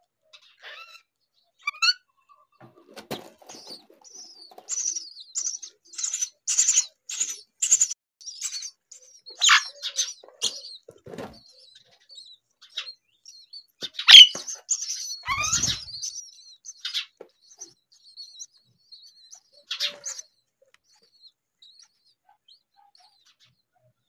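Common myna nestlings begging for food with rapid, high-pitched chirps while being fed, with a few louder sweeping bird calls around the middle and soft rustling of the straw nest.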